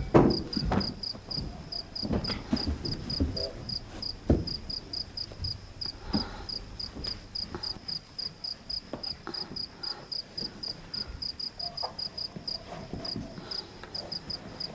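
Cricket chirping steadily, short high pulses about four a second, with scattered low knocks and rustles, the loudest right at the start.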